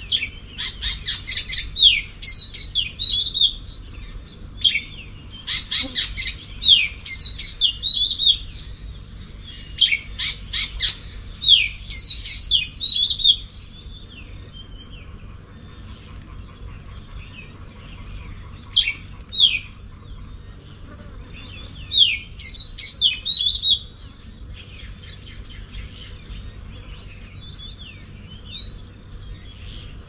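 A songbird singing short phrases of quick, high chirping notes, one phrase every few seconds, with a pause of several seconds past the middle.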